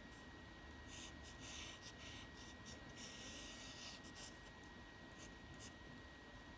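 Pencil drawing on paper: faint scratchy strokes, a group of short ones and then one longer stroke about three seconds in, followed by a few quick flicks.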